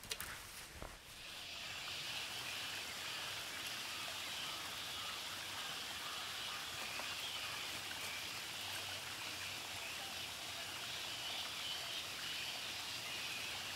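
A few soft rustles and knocks, then a steady outdoor forest ambience begins about a second and a half in: an even, unbroken hiss.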